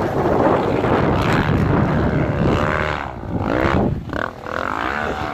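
Dirt bike engines revving hard as the bikes climb and ride the sand, the pitch rising and falling with the throttle.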